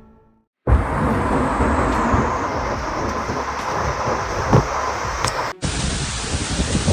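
Steady, dense hiss of heavy torrential rain, cut off abruptly about five and a half seconds in and followed straight away by another stretch of downpour.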